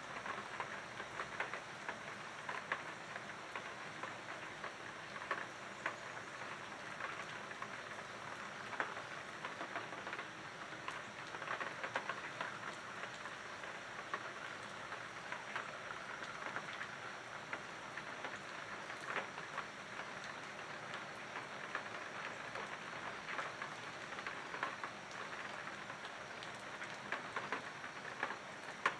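Steady rain falling, with many small drop impacts ticking on a surface.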